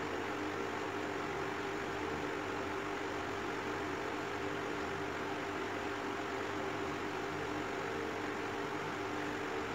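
Steady machine hum with a few even tones over a constant hiss, unchanging throughout.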